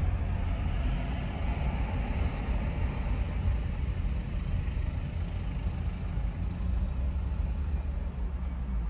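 Steady road and tyre rumble heard inside the cabin of a first-generation Nissan Leaf electric car, with no engine sound.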